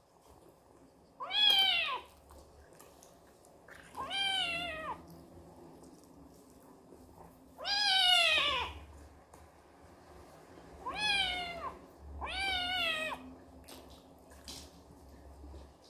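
Kitten meowing five times, each meow a high call that slides down in pitch, the last two close together.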